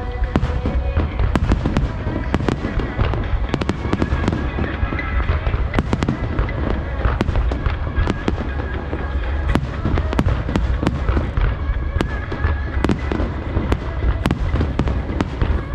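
Aerial firework shells bursting in quick, irregular succession: many sharp bangs and crackles over a continuous low rumble.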